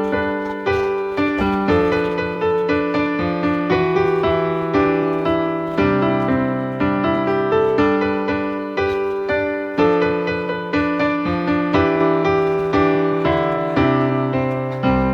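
Piano playing the slow introduction of a ballad, with chords struck at a steady, unhurried pulse. There is no singing yet.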